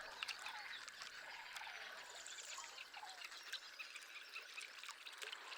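Faint natural ambience of scattered small animal chirps and clicks, with a few faint wavering calls and a brief thin high note about halfway through.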